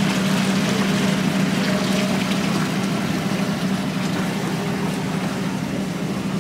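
Boat engine running steadily with a low hum, over rushing water.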